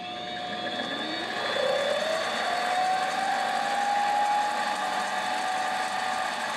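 Mini lathe starting up: its motor and three-jaw chuck spin up with a whine that rises in pitch over the first few seconds, then run at a steady speed.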